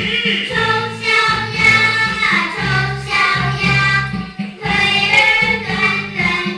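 A group of young children singing a song together over a music accompaniment.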